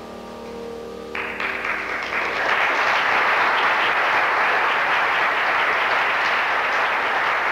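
A grand piano's final chord dies away. About a second in, an audience breaks into applause, which swells over the next second or so and then holds steady.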